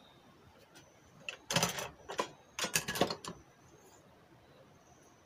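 Hand-handling noise from small parts being fiddled with and moved: two short flurries of clicks and rustles, the first about a second and a half in, the second around three seconds in.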